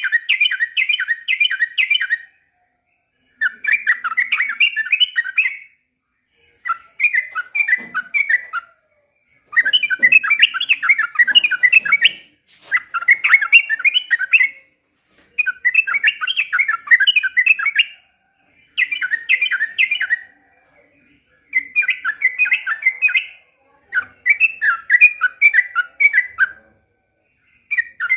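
Yellow-vented bulbul (trucukan) singing in repeated phrases of rapid chattering notes, each about two seconds long, with short pauses between them.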